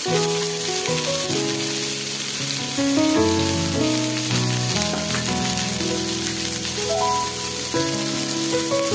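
Onion and capsicum sizzling in a little hot oil as they are stir-fried in a nonstick pan, with a steady hiss, under background music with a simple held-note melody.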